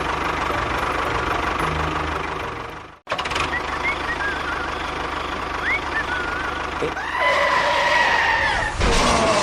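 Small motor of a DIY model construction machine running steadily, cutting off abruptly about three seconds in and then running again. About two seconds before the end, a louder high wavering tone rises over it.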